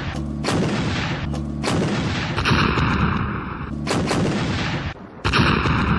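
Artillery firing: about five heavy shots at uneven intervals, each followed by a long rumbling echo.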